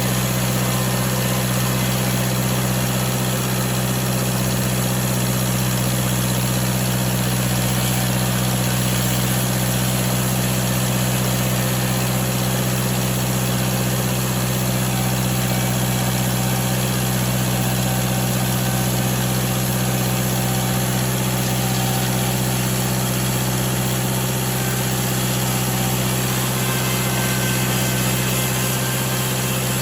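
Damn Yankee sawmill's engine running at a steady speed, with an even hum that holds without change.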